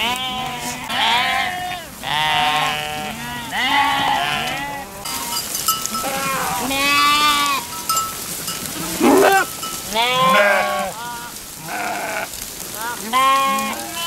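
Large flock of sheep on the move, bleating continually, with one call overlapping the next.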